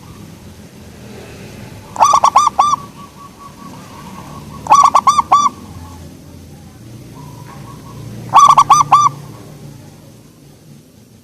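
Zebra dove (perkutut) cooing: three song phrases, each a quick run of about four bubbling notes, a few seconds apart.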